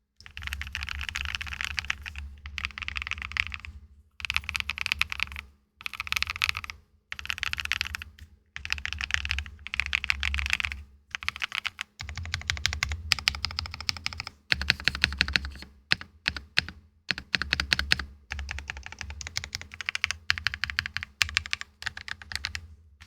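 Freshly built custom mechanical keyboard with plate and foam being typed on for a sound test: dense, rapid key clacks in bursts of one to two seconds, with short pauses between.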